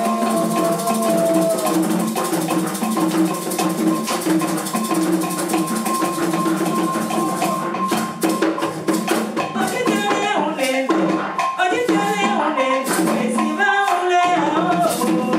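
Live Beninese popular music: a woman sings lead over sustained chords and a busy percussion rhythm, and her voice stands out more clearly from about nine seconds in.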